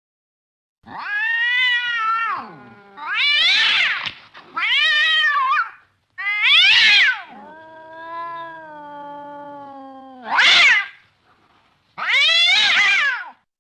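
Domestic cat yowling: a string of loud, drawn-out meows, each rising then falling in pitch, with a lower, longer moaning call in the middle.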